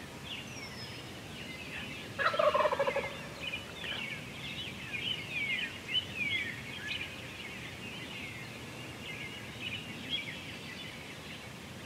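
A wild turkey gobbler gobbles once, loudly, about two seconds in. Other birds chirp and sing throughout.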